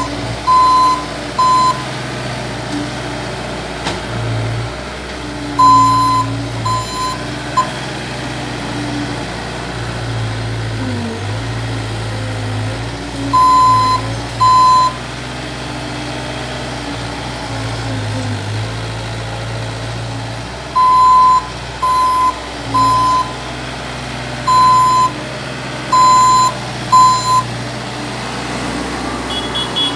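Bobcat S450 skid-steer loader's engine running steadily under work, with its backup alarm beeping in several short runs of two or three beeps about a second apart as it reverses.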